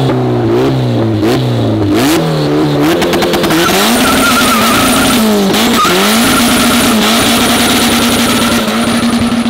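Car engine revved in quick repeated blips. About three and a half seconds in, it is held at steady high revs as the drive tyres break loose and spin in a burnout, with a wavering tyre squeal.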